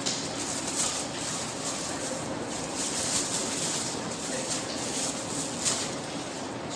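Room background noise: a steady hiss with a few faint scattered rustles or light knocks.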